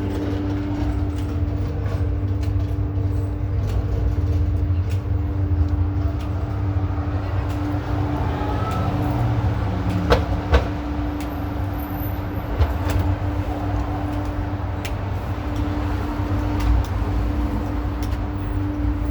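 City street traffic: a heavy vehicle's engine running with a steady low rumble and a constant hum. A couple of sharp clicks about ten seconds in.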